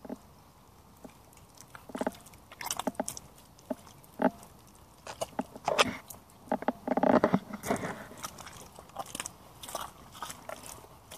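Yellow Hunter rubber wellington boots squelching in thick mud as they tread and shift, in irregular wet bursts, the loudest about seven seconds in.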